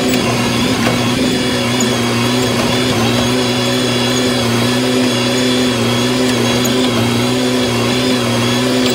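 Tractor engine running steadily at one speed, towing a trailer slowly in reverse.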